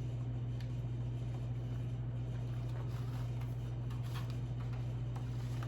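A steady low hum with a few faint, scattered clicks and taps of eating with a plastic fork.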